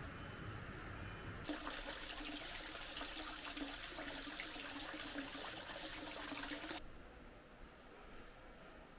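Running water trickling and splashing, starting abruptly about one and a half seconds in and cutting off about seven seconds in; a faint steady outdoor background before and after.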